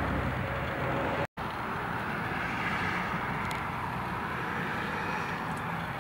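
Nissan Frontier pickup's engine running steadily. A short silent gap from an edit comes just over a second in, then a steady rushing hiss of the running truck.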